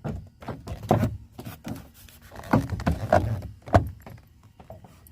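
Hard plastic interior door trim and handle parts knocking and clicking as they are worked into place, in several separate knocks with the sharpest near the end.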